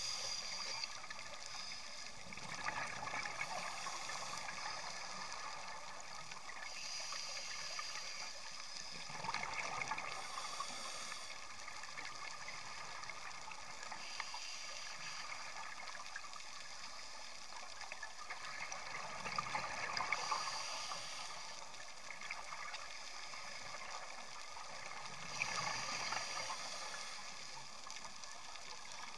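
A scuba diver breathing through a regulator, heard underwater through the camera housing: a hiss on each inhale and a burst of bubbling on each exhale, repeating every several seconds over a steady background hiss.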